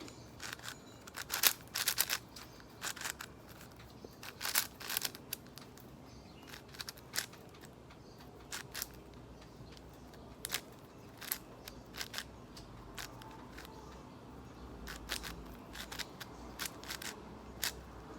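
YJ MGC 6x6 magnetic plastic speed cube being turned by hand: irregular clicks and clacks of the layers turning, in quick clusters over the first five seconds and sparser after that.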